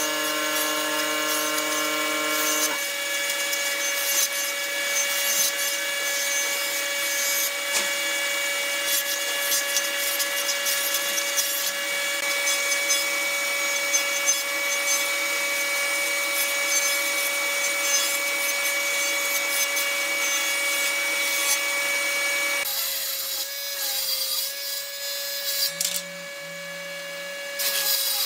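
Combination woodworking machine's jointer running as a board's edge is fed across its cutterhead: a steady motor whine under the rough noise of the knives cutting wood. Near the end the cutting eases off and the machine runs on more quietly.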